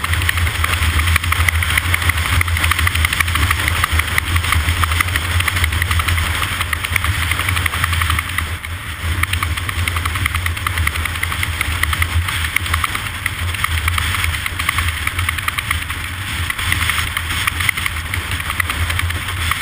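An engine running steadily: a constant low hum with a fast, even rattle above it.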